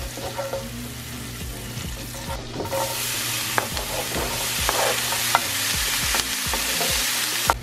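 Butter sizzling in a nonstick skillet while a wooden spoon stirs it, with sharp taps of the spoon against the pan. About three seconds in, the sizzle grows louder as diced onion and then red bell pepper go into the hot butter.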